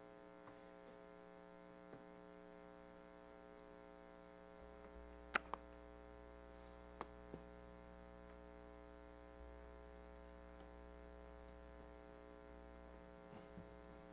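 Near silence with a steady electrical mains hum, broken by two pairs of faint short clicks about five and seven seconds in.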